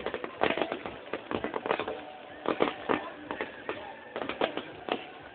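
Fireworks going off: a rapid, irregular series of bangs and crackles from bursting shells, coming in clusters.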